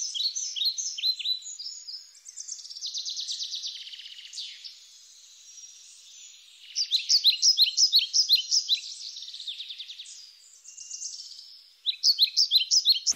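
Songbirds singing: bursts of quick, falling chirps in repeated phrases, with a fast trill between them.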